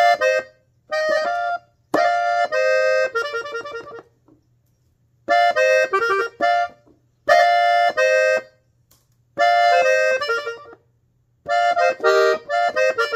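Hohner button accordion tuned in F, played on the treble buttons in about six short melodic runs of a second or so each, with brief pauses between them.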